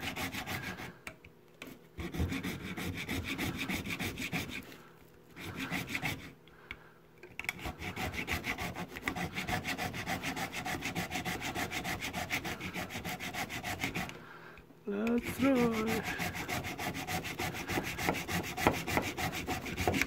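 Small hand saw cutting through the hard plastic case of a power adapter, in quick back-and-forth strokes with a few short pauses; the case has no screws, so it is being sawn open.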